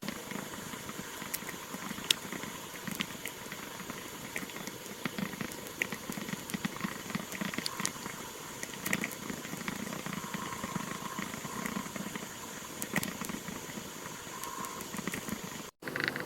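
An inking pen scratching across paper, with many small ticks as the nib touches down and lifts. The sound cuts out for a moment near the end.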